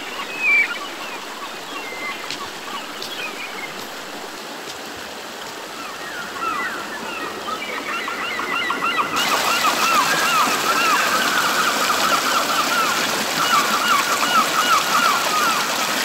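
Shallow river running over stones, a steady rushing that turns louder and hissier about nine seconds in. From about six seconds in, a bird chirps in quick runs of short notes over the water.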